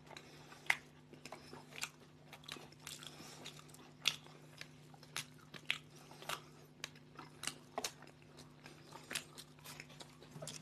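Close-up eating of toasted bread sandwiches: irregular biting, crunching and chewing with sharp mouth clicks, over a faint steady low hum.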